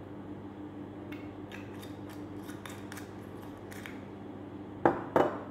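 Light clicks and taps of a glass olive oil bottle and its screw cap being handled. Near the end come two loud knocks, about a third of a second apart, as the bottle is set down on the stone counter. A steady low hum lies under it all.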